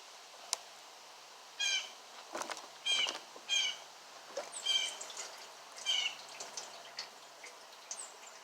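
A bird calling in short, harsh notes, about five times, with a few light clicks in between.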